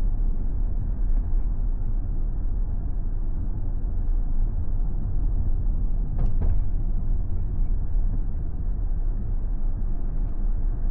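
Steady low rumble of a car driving, with one short click about six seconds in.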